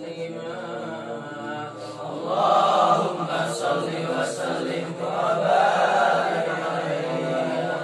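Group of young men chanting Islamic devotional dzikir together in long held notes, unaccompanied. The chant swells louder about two and a half seconds in and again about five seconds in.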